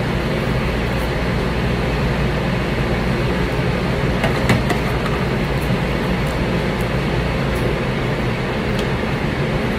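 Steady, even background rush of noise, with a few faint clicks about four and a half seconds in.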